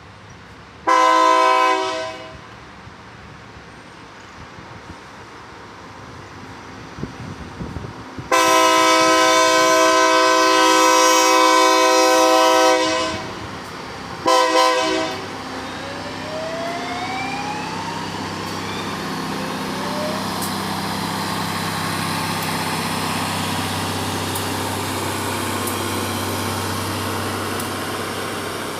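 Train air horn sounding a short blast, a long blast of about four seconds, and another short blast. Then a steady, slowly swelling rumble of diesel engines as the Loram ballast-cleaning train draws near, with a couple of rising whines.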